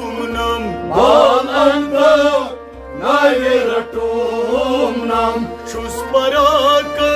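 Kashmiri Sufi song: a singing voice with wavering, ornamented pitch over a steady held instrumental drone.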